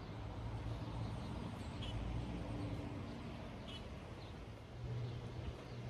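An engine or motor running steadily with a low hum, swelling slightly near the end, with a few faint bird chirps.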